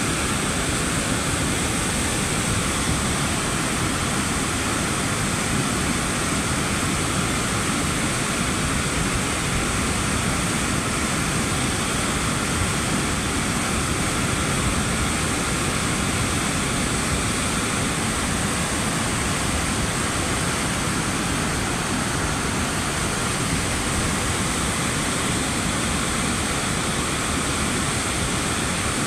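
Muddy floodwater flowing fast in a flash flood, a steady, loud rushing of water.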